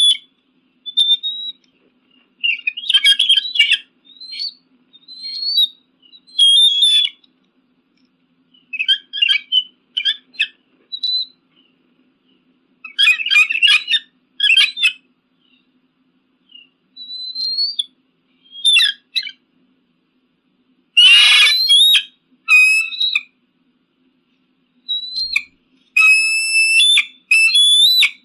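Eagle calls: clusters of high-pitched, piping and chattering notes separated by silent gaps of a second or more. A harsher, louder call comes about 21 seconds in, and a run of rapid repeated notes follows near the end.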